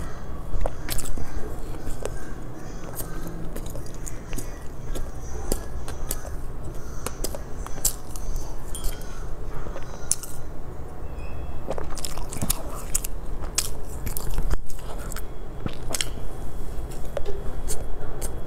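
Close-miked eating of soft sponge cake: biting and chewing with many small, sharp mouth clicks, and a sip from a paper cup about halfway through.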